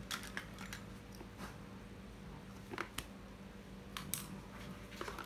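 Scattered light clicks and taps of small hard objects being handled, over a steady low hum.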